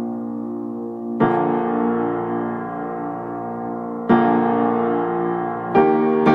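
Background piano music of slow, sustained chords, with a new chord struck about a second in, another about four seconds in, and two more in quick succession near the end.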